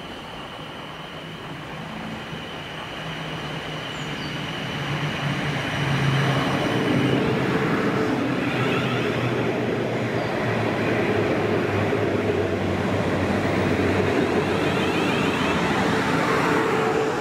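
South Western Railway Class 450 Desiro electric multiple unit running along the platform: a steady hum with the rumble of wheels on the rails. It grows louder over the first six seconds as the train draws alongside, then holds steady.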